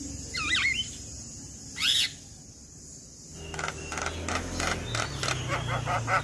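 Male Javan myna (jalak kebo) calling. A few quick whistled glides come first, then one loud harsh note about 2 s in. After a short pause, a fast run of sharp chattering notes starts about 3.5 s in.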